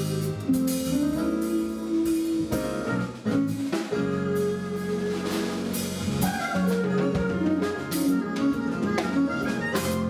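Live jazz-fusion band playing: a soprano saxophone carries the melody over electric guitar, bass, keyboards and drum kit. The tune ends on a final accented hit at the very end.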